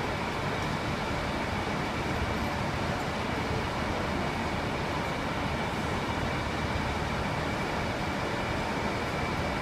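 KiHa 40-series diesel railcar idling at a standstill: a steady, even engine rumble and hum with a thin high tone running through it, unchanging throughout.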